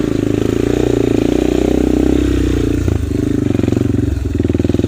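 Dirt bike engine running at low speed on a rough trail, its pitch rising and falling a little with the throttle, with a brief knock about three seconds in.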